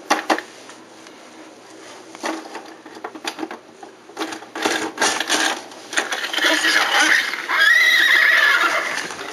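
See 'n Say farm-animal toy playing its recorded horse whinny, the loudest sound, in the last few seconds. Before it come a few clicks and knocks of plastic toys being handled.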